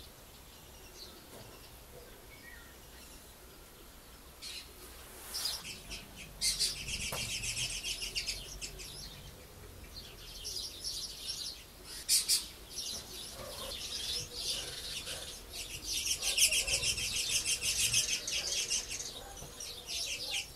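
Lesser kestrels calling: rapid high-pitched chattering in several bursts of one to four seconds, quiet for the first few seconds.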